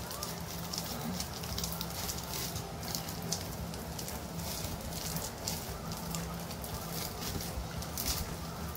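Homemade slime packed with styrofoam beads being squeezed and kneaded by hand, giving a dense run of small crackles and squishes. The slime is over-activated, with too much activator added.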